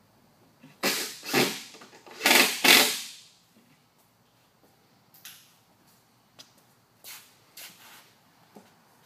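A metal ice chest scraping and shifting against a wooden box: four loud, short scrapes close together, then a few fainter knocks and scuffs.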